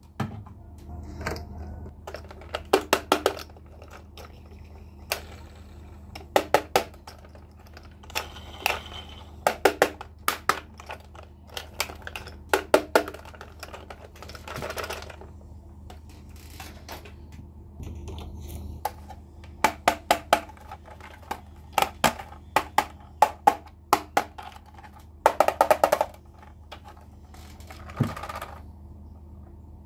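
Hard plastic toy trains being handled: clusters of sharp clicks and clacks as the pieces are picked up, knocked together and set down, with a few short scrapes, over a faint steady low hum.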